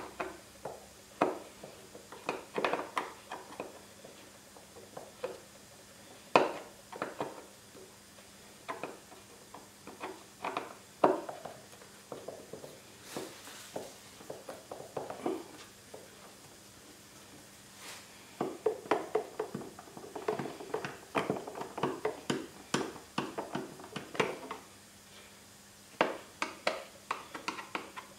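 Phillips screwdriver backing screws out of a Kawasaki Ninja 1000SX's plastic airbox cover: irregular clicks and light knocks of the tool against screw heads and plastic, with runs of quick clicks in the second half.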